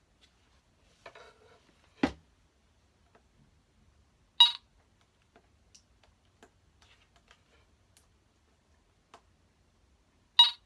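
Teknetics Delta 4000 metal detector giving two short electronic beeps about six seconds apart as it is switched on, and it will not stay on. There is a single knock about two seconds in, with faint handling rustle before it.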